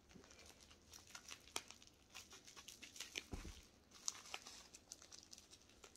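Faint crinkling and rustling of small packaging being handled and picked open by hand, with a few light clicks and ticks scattered through.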